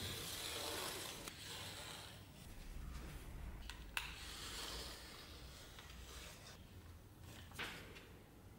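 Utility knife blade drawn through thick leather on a plastic cutting board: long scratchy slicing strokes in the first half, with a sharp click about four seconds in, then quieter handling.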